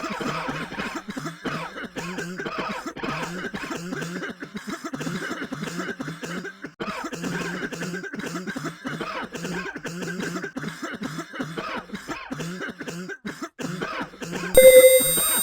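A person coughing over and over without a break. Near the end a sudden, much louder burst of music and electronic noise with steady held tones cuts in.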